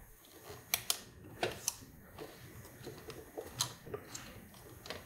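Several faint, separate clicks from a nylon cable tie being pulled tighter to secure an aluminium radiator guard.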